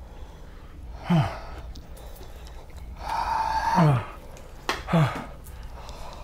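A man groaning in pain from the burn of a 9-million-Scoville chili-extract lollipop: a short groan about a second in, a longer, louder strained wail from about three seconds in that drops in pitch at its end, and another short groan about five seconds in.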